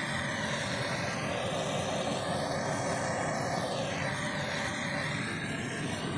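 Handheld propane torch burning steadily with a constant hiss as its flame heats the end of a pipe.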